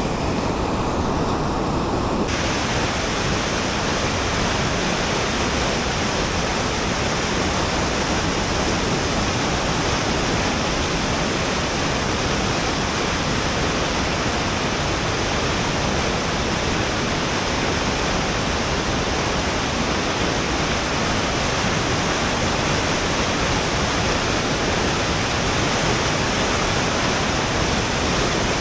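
Steady rush of river rapids and falling water, a continuous even roar with no break; it brightens slightly about two seconds in.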